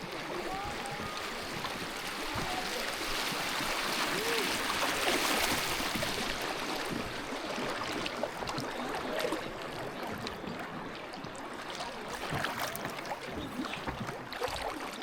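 Kayak moving through river current: a steady rushing of moving water that swells for a few seconds and then eases, with small gurgles and light splashes from the hull and paddle later on.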